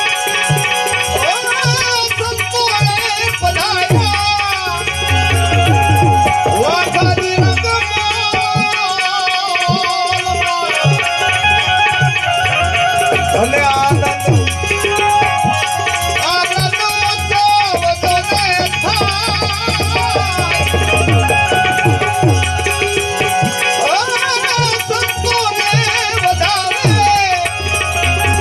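Devotional bhajan music, with tabla keeping the rhythm under a continuous melodic line. The deep tabla strokes bend in pitch.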